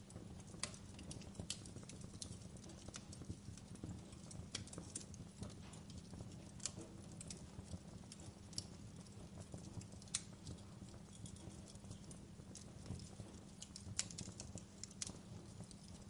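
Wood fire burned down to glowing embers, crackling with irregular sharp pops and snaps over a low steady rumble.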